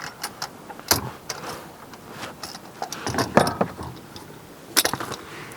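Metal tool clicks and clanks as a cup-style oil filter wrench is fitted and turned to loosen a Honda Civic's oil filter. The sharpest knock comes about a second in, and a quick cluster of clicks comes near the end.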